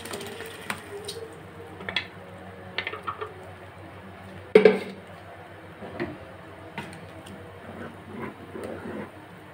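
Kitchen utensil and container knocking and scraping against a cooking pot as blended tomato is poured over minced meat and stirred in: scattered light clicks, with one louder knock about halfway through.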